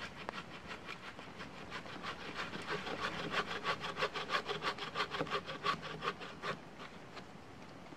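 Hand saw cutting through a fallen pine log in quick, even back-and-forth strokes, about four a second, getting louder midway and stopping about three-quarters of the way through.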